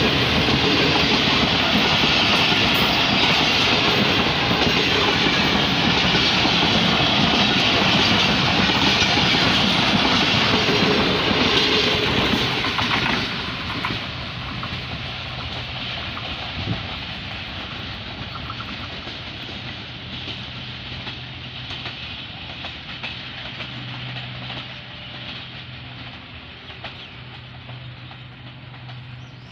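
Pakistan Railways passenger train passing close by, its coach wheels clattering over the rails. About 13 seconds in the sound drops sharply, and the train's rumble then fades steadily as it moves away.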